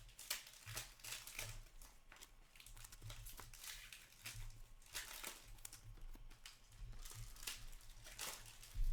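Hockey trading cards being handled and slid off a stack by hand: a string of short, sharp paper-and-plastic rustles at irregular intervals.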